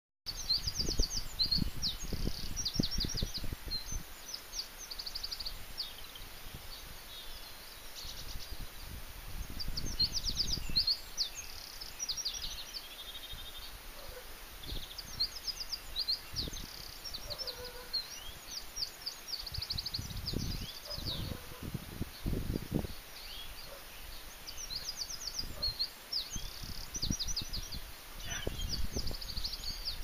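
Dawn chorus of songbirds: many short, high, repeated trilling phrases overlapping throughout. Several bursts of low rumble on the microphone come and go and are the loudest thing at times.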